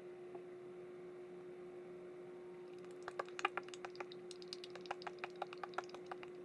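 Light, irregular clicking and tapping of a small plastic toy egg being handled in cupped hands, starting about three seconds in, over a faint steady hum.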